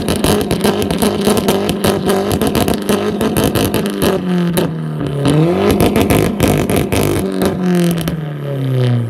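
Audi A4's engine being revved hard, held at high revs with a rapid crackle, dropping back about halfway, revving up again and then falling away near the end.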